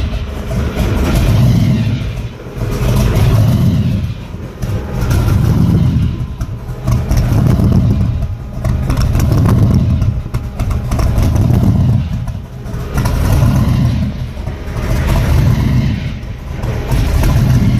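Supercharged 427 big-block V8 (Weiand blower with Holley carburetors) of a 1969 Corvette Stingray, running through chrome side-pipe exhausts. The engine note rises and falls in slow surges about every one and a half to two seconds.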